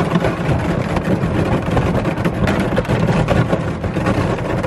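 Canoe hull breaking through thin lake ice: a continuous loud crunching and cracking with a low rumble, as the ice sheet shatters and its pieces grind and scrape along the hull.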